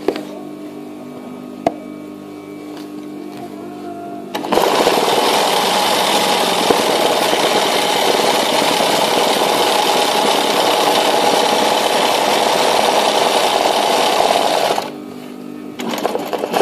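Sewing machine doing free-motion embroidery, its needle stitching fast with a dense, rapid rattle. The rattle starts about four seconds in and stops near the end, then gives one short burst more. Before it there is a quieter steady hum with a couple of clicks.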